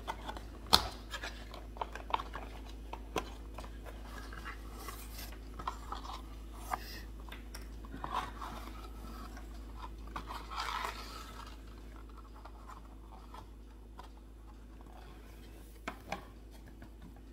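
Small clicks and knocks from miniatures being handled, with short bursts of tissue-paper packing rustling, over a low steady hum. The sharpest click is about a second in; the handling thins out in the second half, with two more clicks near the end.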